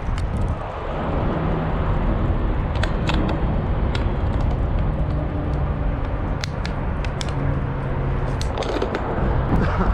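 An engine running steadily with a low drone, with scattered sharp clicks and light scraping over it.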